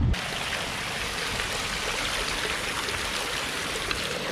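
Running water flowing steadily, a continuous even rush that cuts in abruptly just after the start.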